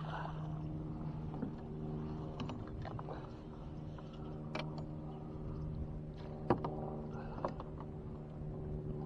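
Boat motor running with a steady low hum. A few sharp knocks come in the second half.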